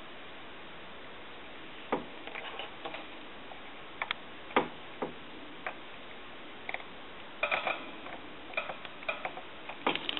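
Light clicks and small metallic taps of hand tools and parts being handled during soldering work on a telephone's internals. They come irregularly from about two seconds in, some in quick clusters.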